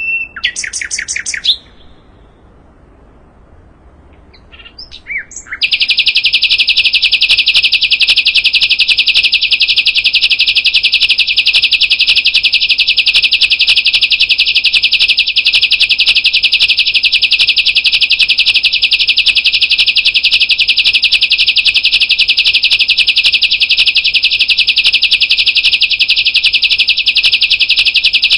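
Sikatan londo, an Old World flycatcher, singing: a quick phrase of rapidly sweeping high notes at the start, a few short notes, then from about five seconds in a loud, dense, very rapid high trill held steadily for over twenty seconds.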